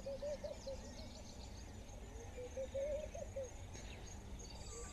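Faint outdoor bush ambience: birds calling, with a wavering low warbling call heard twice and thin high chirps near the start, over a steady low rumble.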